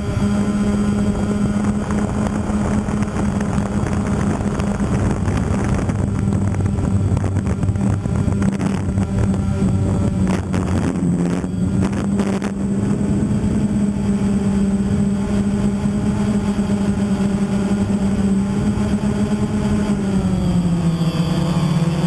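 DJI Phantom quadcopter's motors and propellers buzzing steadily with a constant hum, heard from the onboard camera, with strong wind rushing over the microphone and gusting around the middle. Near the end the buzz drops slightly in pitch.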